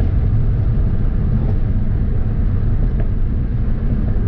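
Steady low rumble of a Hyundai Veloster on the move, engine and road noise heard inside the cabin.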